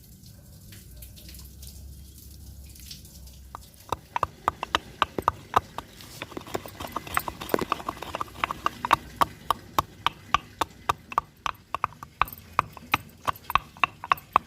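Green cardamom being pounded with a pestle in a mortar: sharp, evenly spaced strikes about three a second, starting a few seconds in after some faint small clicks.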